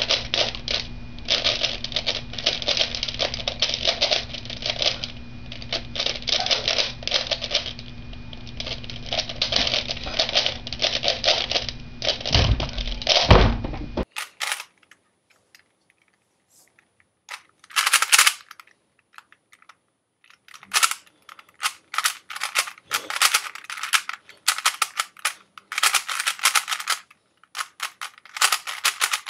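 Plastic pieces of a 3x3 Rubik's cube clacking in rapid runs as its layers are turned fast in a speedsolve. A couple of heavy thumps come about halfway, and after that the turning comes in separate bursts with short pauses.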